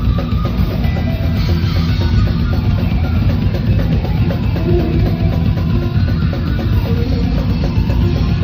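Thrash metal band playing live: distorted electric guitars and fast drum kit, loud and dense, with heavy bass.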